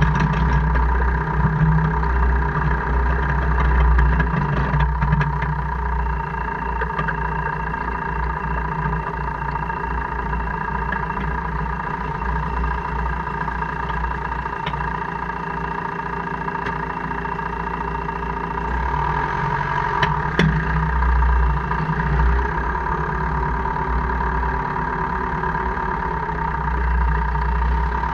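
2002 Jeep Cherokee KJ running with a steady low rumble and a steady whine, with a couple of sharp clicks about two-thirds of the way through. This is the drivetrain grinding/clicking noise that occurs only in 4H or 4L, cause unknown.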